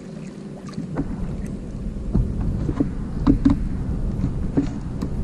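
Low wind rumble over the microphone with several short, hollow knocks on a small boat's hull, as gear or a paddle bumps it.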